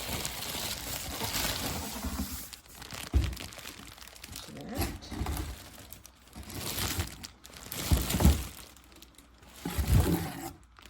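Packaging crinkling and rustling as a humidifier is lifted out of its box, with a few dull thumps along the way.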